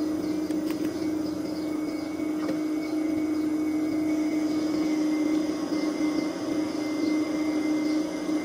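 A machine running with a steady, constant-pitch drone, with a few faint clinks at the start.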